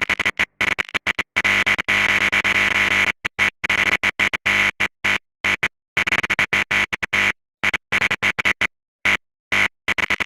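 Harsh distorted electronic noise with a strong buzzing band, cut on and off in rapid, irregular short and long bursts with dead silences between them, like a broadcast signal glitching and breaking up.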